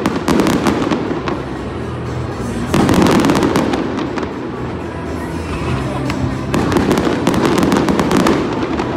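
Aerial fireworks bursting and crackling in clusters of rapid bangs, heaviest about three seconds in and again near the end, with music playing underneath.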